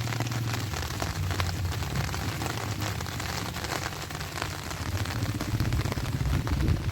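Steady rain falling, with many close drops ticking sharply over an even hiss and a low rumble underneath.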